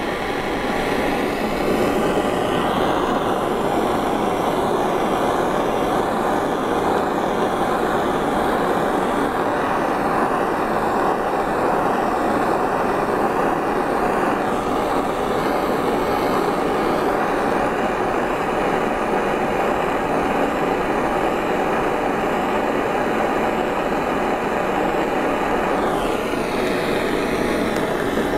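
Butane soldering torch burning with a steady hiss while it heats a sterling silver ring to flow easy solder paste into the seam. The hiss cuts off suddenly at the very end as the torch is shut off.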